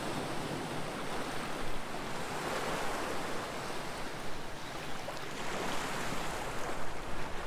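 Shallow sea water washing and lapping in small waves at the shore, a steady wash of noise.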